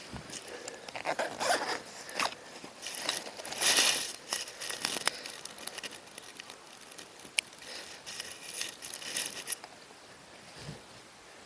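A zipper being pulled in a few quick strokes, followed by lighter rustling and small clicks of gear being handled that die away near the end.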